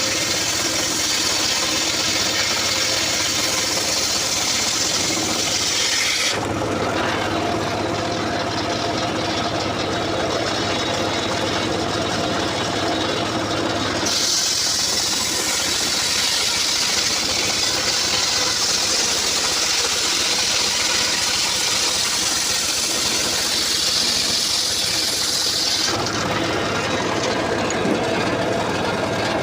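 Engine of a homemade engine-driven circular saw (serkel) running steadily. In two long spells, about the first six seconds and again for about twelve seconds in the middle, the sound turns brighter and hissier as the blade cuts through a coconut log.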